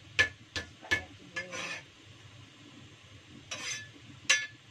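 Metal spatula knocking and scraping against a pan while stirring the pork: sharp metallic clinks about three a second for the first second, then two scraping strokes and one last clink near the end.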